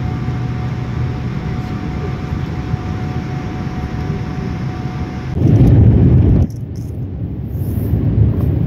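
Steady jet airliner cabin noise, a deep engine and airflow hum with a faint steady whine. About five seconds in it swells into a louder low rumble for about a second, then breaks off into a duller, muffled engine and airflow noise near the ground.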